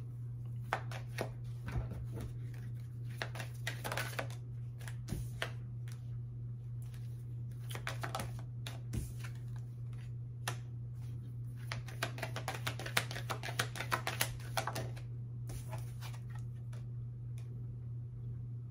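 Tarot cards being shuffled and handled: rapid papery card snaps and flicks in two busy spells, over a steady low hum.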